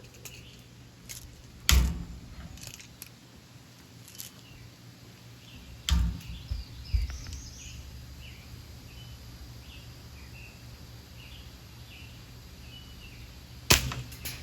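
BB gun fired three times, each a sharp crack: about two seconds in, around six seconds in with a couple of smaller clicks just after, and near the end.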